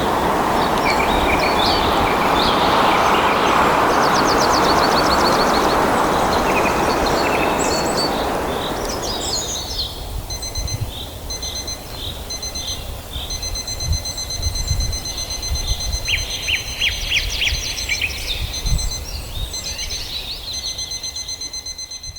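Wind rushing through forest leaves with small birds chirping; the wind fades away about ten seconds in. A soft electronic wake-up alarm of high, evenly repeating beeps then sounds over the continuing birdsong, with a few low thumps beneath it.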